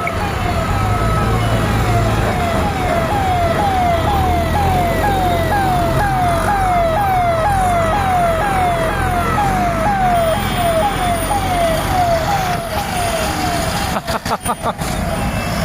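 Emergency vehicle siren wailing in fast falling whoops, about two a second, over the heavy engine rumble of convoy vehicles moving on the road. The siren stops about fourteen seconds in, amid a few sharp crackles.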